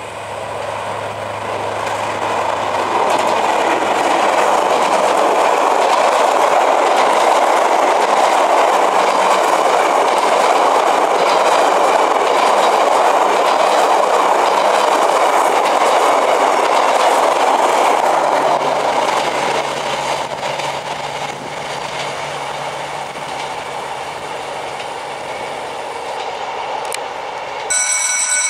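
Vietnam Railways D19E diesel-electric locomotive passing close by, its low engine hum giving way to a steady rush of passenger-coach wheels on the rails. The rush builds over the first few seconds and eases off after about eighteen seconds. Near the end the sound cuts suddenly to a steady, high-pitched tone.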